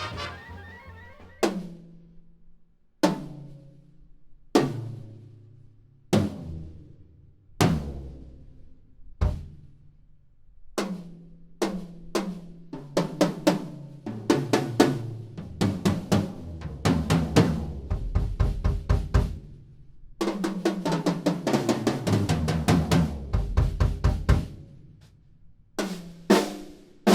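Yamaha Recording Custom birch drum kit being played for a sound check: single drum strokes with ringing tails about every second and a half, then quicker fills and a long roll with heavy low-end drum hits, and a few more strokes near the end.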